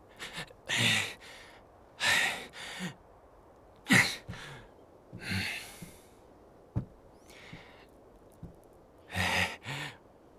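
A person sighing and huffing: a string of short breathy exhalations, some partly voiced, with a single sharp click about two thirds of the way through.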